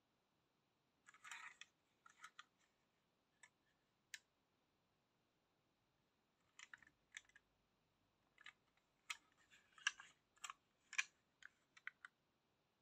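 Faint, scattered clicks and brief rubbing of a small diecast toy bus being handled and turned over in the fingers, growing busier in the second half.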